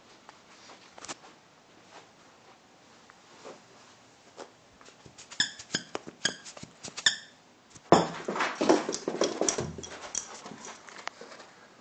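A dog at play: about six short, high squeaks or whines a little past the middle, then two or three seconds of loud scuffling and rustling.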